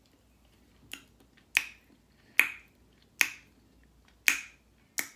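Finger snapping: a series of about six sharp snaps, roughly one a second, reacting to the spicy heat of a just-bitten jalapeño popper.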